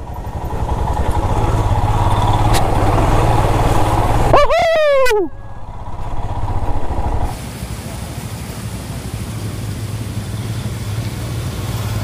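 Motorcycle engine running, with a rushing noise over it that drops away about seven seconds in. About four and a half seconds in comes one loud, long, falling shout of surprise from the rider.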